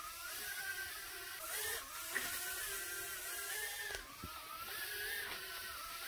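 Voyage Aeronautics PA-1008 palm-size quadcopter drone in flight, its four tiny motors and propellers whining. The whine wavers up and down in pitch as the motor speeds change to steer and hold height.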